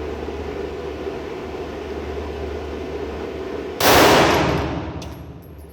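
A single 9 mm pistol shot from a PSA Dagger, loud and fading over about a second, comes near the end after a few seconds of steady range background noise. A couple of faint clicks follow it.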